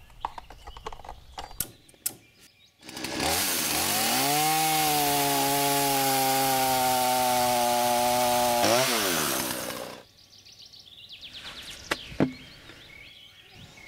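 Husqvarna two-stroke chainsaw making a test cut through a log. It comes in about three seconds in, climbs and settles to a steady pitch under load for about five seconds, then briefly rises in pitch and winds down, stopping about ten seconds in.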